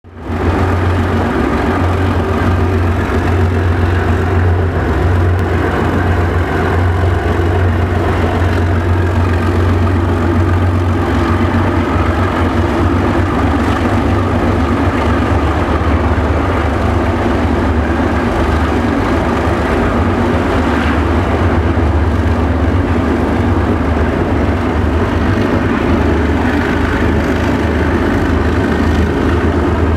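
Narrow-gauge diesel-electric locomotive's engine running with a steady low drone as the train rolls along, with a constant rushing rolling noise over it.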